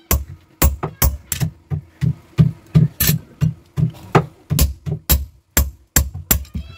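Steady, rhythmic hand-hammer blows, about two to three a second, on a tool held in tongs against a red-hot knife blade on a steel anvil. The blacksmith is working the hot steel into a kitchen knife.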